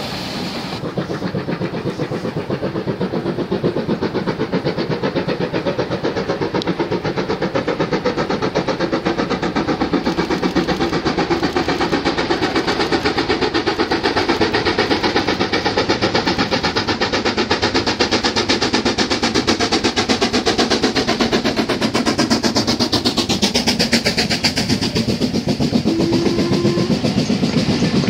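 LMS Black 5 steam locomotive working a passenger train, a rapid run of exhaust beats growing steadily louder as the train draws nearer. A short steady note sounds near the end.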